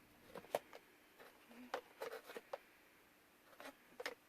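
Faint scattered clicks and taps of a cardboard subscription box and its packed products being handled, in small clusters about two seconds in and again near the end.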